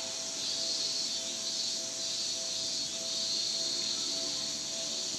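Cicadas shrilling in a high, continuous chorus that swells and fades about once a second, over a steady low hum.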